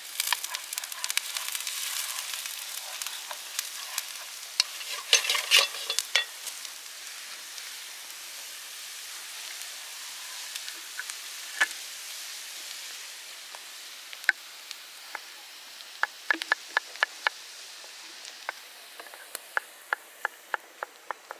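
Chopped onion sizzling in oil in a wide pan, with a clatter of a wooden spoon stirring about five seconds in. Later come quick runs of knife taps on a wooden cutting board.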